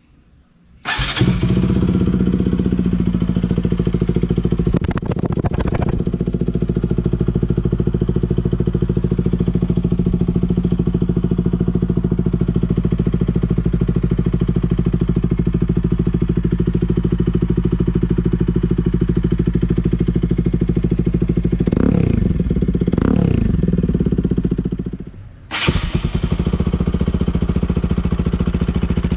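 Bajaj Pulsar RS200 single-cylinder engine starting about a second in and idling through an aftermarket Akrapovic-style slip-on exhaust, with short throttle blips. Near the end the sound drops away briefly and the idle comes straight back.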